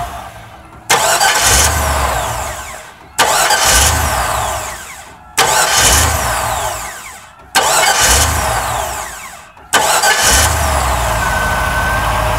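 Newly installed aftermarket starter cranking a GMC Suburban's V8 in short bursts about two seconds apart, each winding down. About ten seconds in the engine catches and runs steadily, with a thin steady whine on top.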